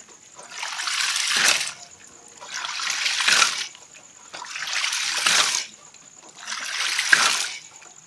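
Hydraulic ram pump (type 1.4) cycling: water gushes from the open waste valve for about a second, then the valve slams shut with a sharp knock of water hammer. It repeats four times, about once every two seconds.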